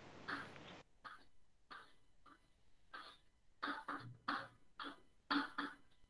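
Chalk tapping and scraping on a chalkboard in short, irregular strokes, about two a second, as lines and letters are drawn.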